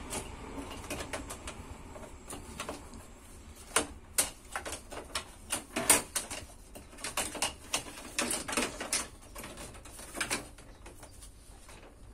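Irregular clicks and light knocks as an appliance's cooling fan is handled and seated onto its sheet-metal casing, loudest about four and six seconds in.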